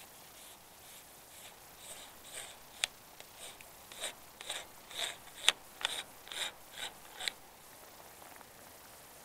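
A run of short scraping rasps, about two a second, with a couple of sharp clicks among them; the loudest click comes about halfway through.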